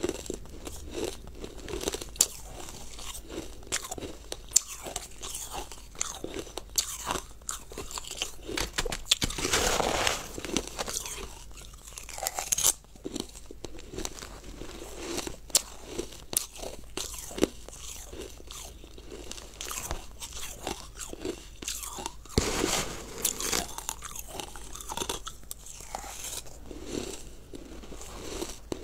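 Close-miked crunching and chewing of icy frozen food: many crisp cracks as mouthfuls of ice break between the teeth. There are two longer, louder spells of crunching, about ten seconds in and again about twenty-three seconds in.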